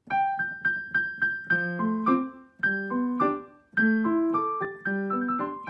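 Background music on a piano-like keyboard: a high note struck repeatedly, about four times a second, then a bouncy melody over lower chords.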